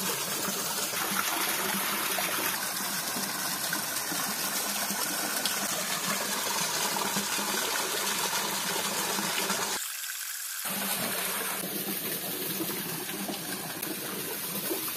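Shallow stream running over rocks, a steady rush of water that drops out briefly about ten seconds in.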